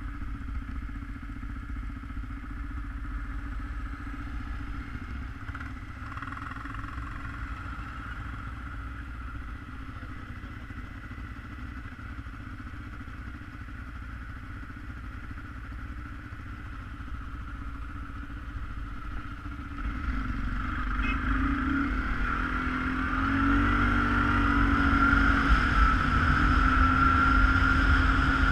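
ATV engine running while riding, with a low rumble underneath. It gets louder about two-thirds of the way through as the revs rise.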